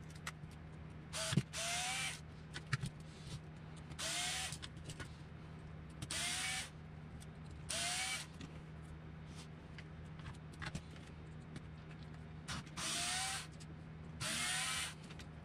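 Ryobi cordless power screwdriver with a hex bit running in six short bursts, each a whine that rises in pitch as the motor spins up, backing screws out of an RC truck's shock tower. Light clicks of small screws and tools come between the bursts.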